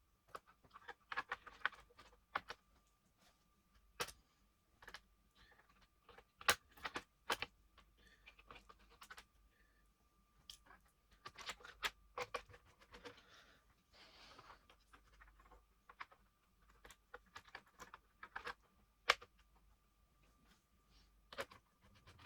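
Irregular small clicks and taps of hard plastic and metal parts being handled, with short scraping stretches about halfway through, over a faint steady thin whine.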